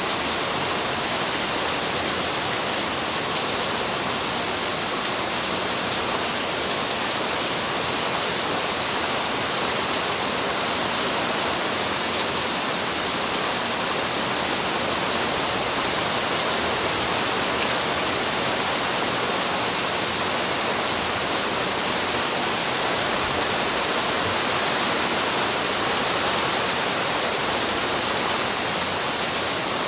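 Steady rain, an even hiss with no single drops, thunder or other events standing out.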